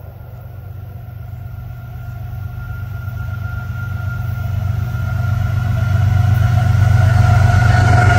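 Florida East Coast Railway diesel locomotive approaching at speed: a deep engine rumble growing steadily louder as it nears, with a thin steady whine above it that drops slightly in pitch near the end as the locomotive comes alongside.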